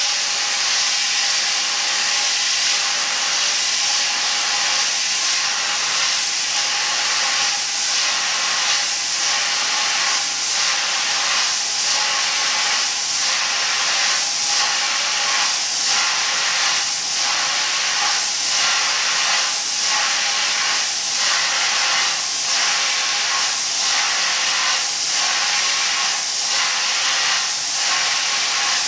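Compressed air jetting from the blow-off nozzles of an automated chip-cleaning machine: a steady, loud hiss. A faint pulsing about once a second runs under it from about a quarter of the way in.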